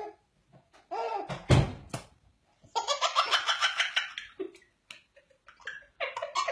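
A baby laughing hard in a long run of quick giggles, with a man laughing along. A short loud noise comes just before it, about a second and a half in, and more laughter starts again near the end.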